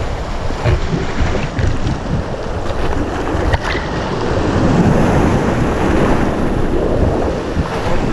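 River water rushing around a paddled raft, with a few brief splashes and wind buffeting the microphone.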